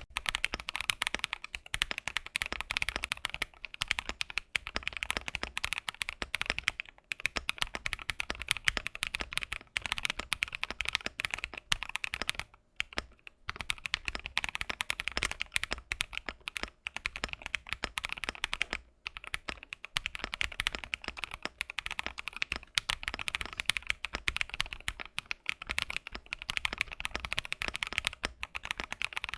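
Typing on a Finalkey V65 R2 gasket-mounted aluminum 65% mechanical keyboard in its stock build: a fast, continuous run of keystroke clicks with a few short pauses.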